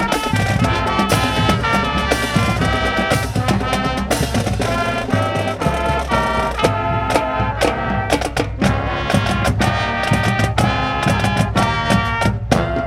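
High school band playing an upbeat holiday piece, with brass carrying the tune over a steady drum beat.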